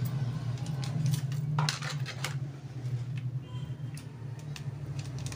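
A metal spoon clinking several times against a small glass bowl and spice sachets as ground spice is measured out, over a steady low hum.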